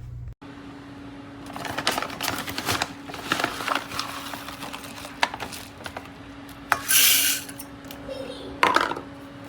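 Clinks and knocks of small hard objects being handled, over a steady low hum, with a short louder swish about two-thirds of the way through.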